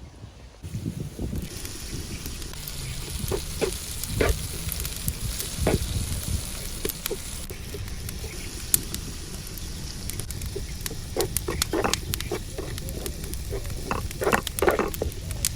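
Food sizzling in a frying pan, the hiss strongest in the first half, with scattered clicks and knocks throughout that grow more frequent near the end.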